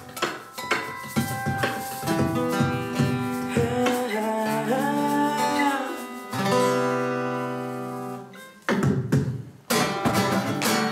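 Acoustic guitar playing an instrumental passage: sharp percussive hits for about the first four seconds, then several seconds of held, ringing notes, some bending in pitch, then percussive hits again near the end.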